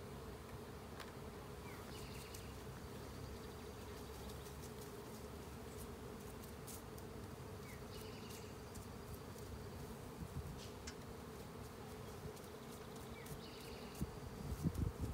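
Honeybee swarm buzzing in a steady hum, with a few low thumps near the end.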